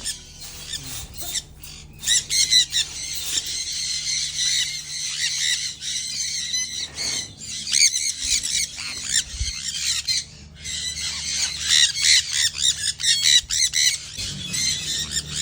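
Parrots squawking and screeching in quick, overlapping calls, with a brief lull about two-thirds of the way through.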